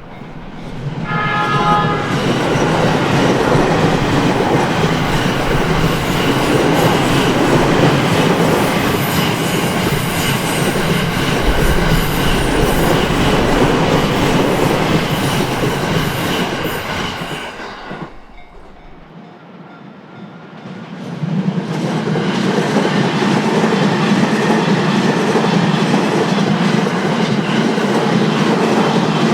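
A train sounds a short horn blast and then runs past loudly for about sixteen seconds before fading. About twenty seconds in, a second train comes up and is still running past at the end.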